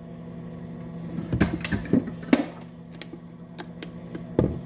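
Several sharp clicks and knocks of something being opened by hand, over a steady low hum.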